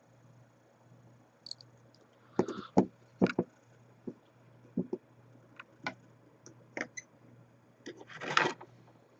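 Scattered light clicks and knocks from soldering tools and wire being handled on a workbench, with a short burst of clatter near the end, over a faint steady low hum.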